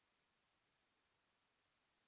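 Near silence: faint steady hiss of a video-call audio stream.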